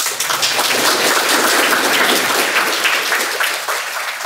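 Audience applauding: many hands clapping together, strongest in the middle and tapering off near the end.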